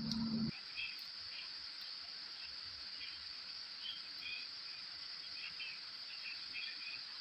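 Steady, high-pitched insect drone in the background with scattered faint chirps; a low hum cuts off about half a second in.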